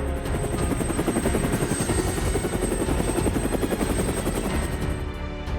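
Helicopter rotor sound effect: a fast, steady chop with a thin high whine that stops shortly before the end.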